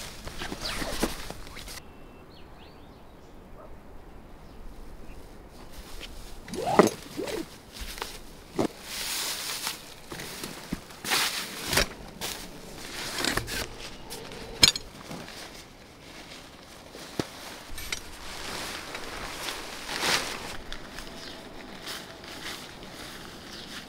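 Rustling and crinkling of camping gear being handled: a foil-faced bag and ground mat and tent fabric, in irregular bursts with a few sharp knocks.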